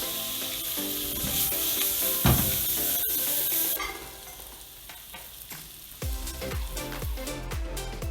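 Food frying in a hot pan, with a loud steady sizzle that stops about four seconds in. Upbeat electronic background music with a steady beat then takes over.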